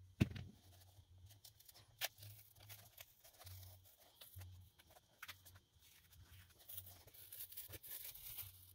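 Handling of a Birkenstock clog: a knock just after the start, then light clicks and scratchy rubbing as the old sole is peeled off the cork footbed. The sole comes away easily because little glue still holds it.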